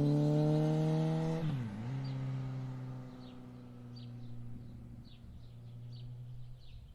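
Motorcycle engine revving with a slowly rising pitch. About a second and a half in, the pitch drops sharply and comes back up as it takes the bend, then it holds a steady note and fades away. Birds chirp faintly in the second half.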